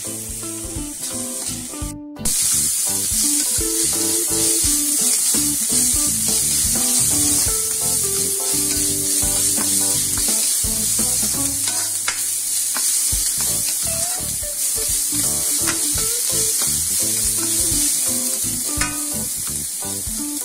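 Chopped onions and chillies sizzling in hot oil in a kadai, stirred and scraped with a wooden spoon as they fry toward golden brown. The sound breaks off briefly about two seconds in.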